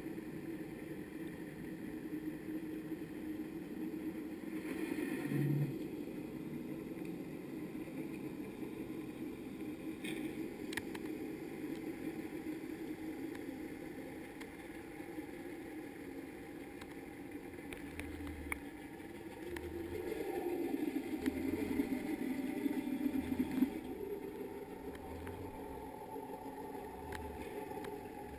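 Muffled underwater hum of a fishing boat's engine heard through a camera housing while a lampara net is being fished. It swells louder about two-thirds of the way through, and soft low thumps come every second or so near the end.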